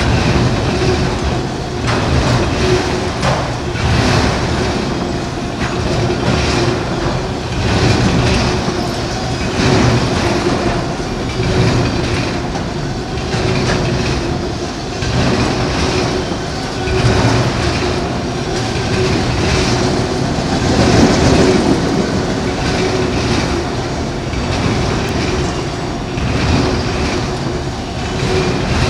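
Canadian National freight train of autorack cars rolling past, the wheels clacking over rail joints in a steady rumble, with a faint steady hum underneath.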